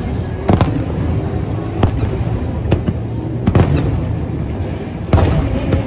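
Aerial fireworks bursting: about six sharp bangs at uneven intervals, the loudest about five seconds in, over the continuous low rumble of the display.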